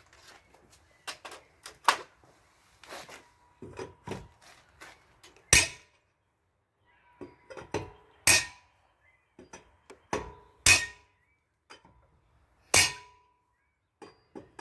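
Lug nuts on a Dodge Journey's wheel being broken loose with a hand tire iron: lighter metal clicks and knocks, then four loud sharp cracks a couple of seconds apart, with a faint metallic ring between them.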